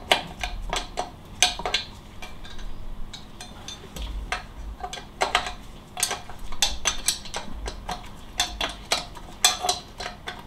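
Irregular metallic clicks and clinks of a hand tool backing off bolts on an engine case, with a few dull low knocks in between.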